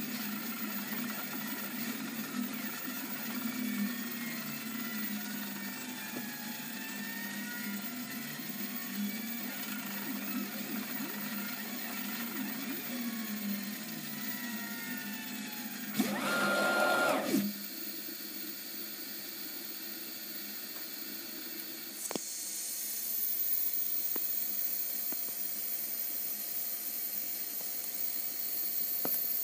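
3D printer's stepper motors driving a wire-laying head, whining in pitches that rise and fall as the head moves. About 16 seconds in, a louder whir with a steady tone lasts a second and a half; then the motor sound stops and a steady hiss remains.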